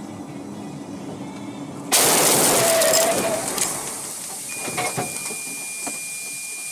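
Car windshield struck by a flying object and shattering, heard from inside the cab: a sudden loud crash about two seconds in, with a hiss that fades over a second or two. A few sharp ticks follow, and a thin steady high tone starts near the end.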